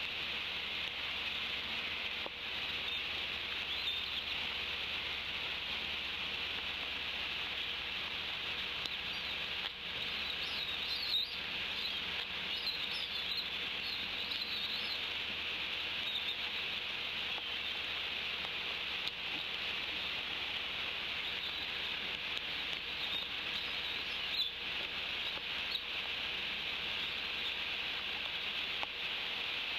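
Steady rain hiss on a bald eagle nest-cam microphone, with a few short, high bird chirps about a third of the way in and a single sharp knock among them.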